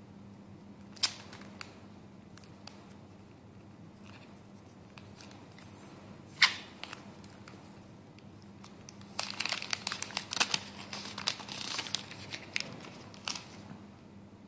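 Thin plastic protective film being peeled off a smartphone and crinkled in the hands. There is a sharp click about a second in and a louder one midway, then a few seconds of dense crackling near the end.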